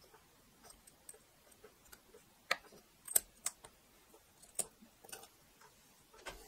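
Faint scattered clicks and taps of a hand taking a small 3D-printed plastic penguin figure off a 3D printer's build plate, with the sharpest few clicks about halfway through.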